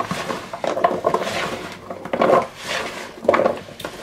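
Chopped sweet potato, red potato, carrot and onion chunks tossed by hand in a plastic mixing bowl to coat them with oil, clattering and rustling against the bowl in a series of short swishes.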